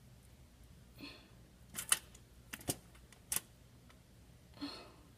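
Homemade slime being mixed and worked, giving a few short, sharp sticky clicks and pops with a couple of softer squelches.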